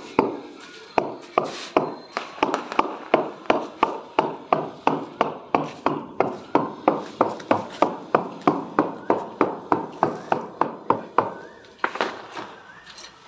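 A hand hammer tapping repeatedly on a polished granite slab, about three sharp knocks a second for some ten seconds, each with a brief ring. The taps set the slab down into its mortar bed.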